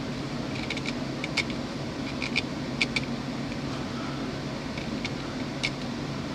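A new oil filter is being spun on by hand, giving light, irregular clicks and ticks over a steady low background hum.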